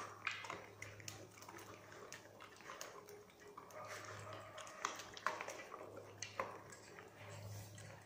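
Several dogs eating together from one stainless steel bowl: chewing, with many irregular clicks and clinks of food and muzzles against the metal bowl.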